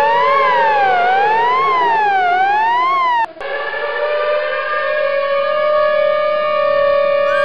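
A siren wailing, its pitch rising and falling about every second and a quarter over a steady droning tone. The siren cuts off suddenly about three seconds in, and the drone carries on alone.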